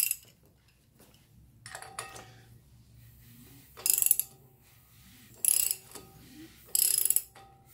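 Hand ratchet on a Datsun L28 crankshaft bolt clicking in four short bursts about every second and a half as the engine is turned over slowly by hand, with cylinder one building up pressure against a piston stop.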